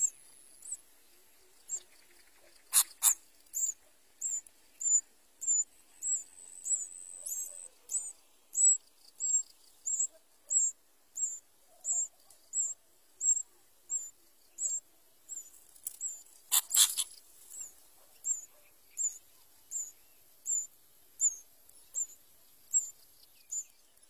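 Sooty-headed bulbul nestlings begging: thin, high-pitched calls repeated about one and a half times a second, with two louder, harsher bursts, one about three seconds in and one just past the middle.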